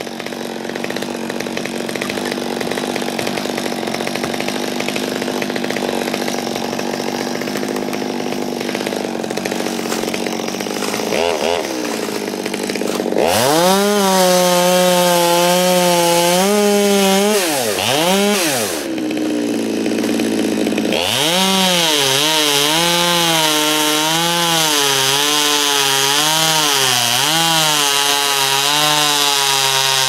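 Two-stroke chainsaw idling, blipped once, then revved to full throttle a little before halfway. After a brief drop-off it holds high revs with a wavering pitch as it cuts through the poplar trunk.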